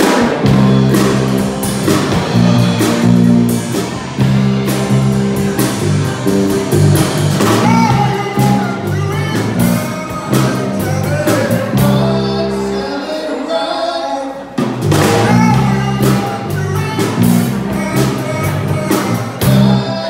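Live blues band playing: electric guitars, keyboard and drum kit over a steady walking bass line. The low bass notes drop out briefly a little past the middle, then come back in.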